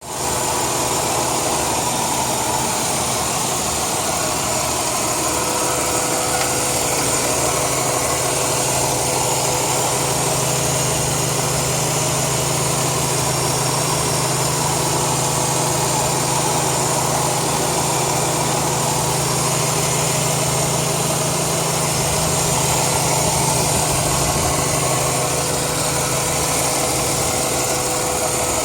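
2002 Chrysler 300M's 3.5-litre V6 idling steadily under a continuous hiss, which the owner puts down to a failed intake manifold gasket.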